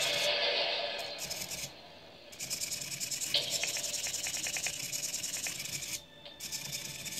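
Small motor mechanism turning an Arduino-driven figure's eyeball: a gritty, buzzing whir in spurts that stops briefly twice, with a single click partway through.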